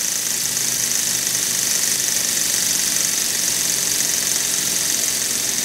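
Small live-steam toy engine with an oscillating brass cylinder, a "rocker" engine fed with steam from a Jensen boiler, running steadily. Its fast working beat sits under a constant high hiss of steam.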